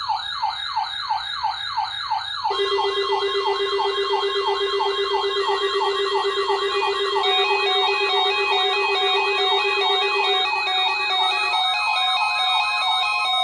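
Siren-style electronic alert tones of an Emergency Alert System weekly test: a fast repeating falling yelp, several sweeps a second, layered over steady and alternating beeping tones. A low steady tone joins at about two and a half seconds and drops out near the end.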